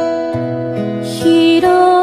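A slow ballad: a woman singing with a steel-string acoustic guitar accompanying her. The music grows louder a little past halfway.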